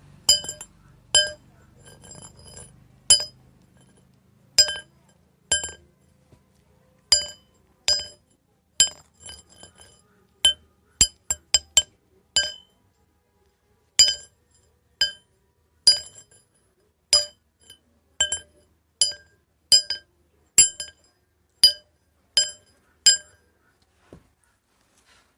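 A metal rod being struck over and over: sharp, ringing clinks about once a second, with a quicker run of strikes near the middle. They stop a couple of seconds before the end.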